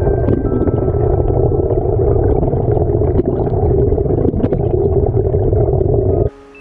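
Waterfall's loud, steady roar, heaviest in the low end, cutting off abruptly near the end, with faint music notes under it.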